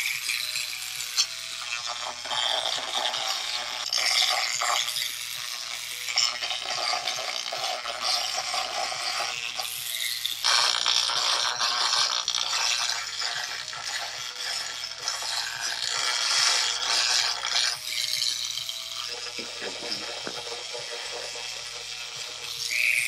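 Dremel rotary tool scuffing the inside of a bicycle suspension link's bearing housing, roughening the bore for bearing retaining compound. It makes a hissing, scraping grind that swells and eases as the bit is pressed in and moved around.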